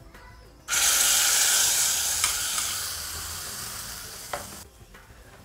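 Hot oil tempering of mustard seeds and fried grated coconut poured into a pot of simmering sambar. It sizzles loudly all at once about a second in, then fades away over about four seconds.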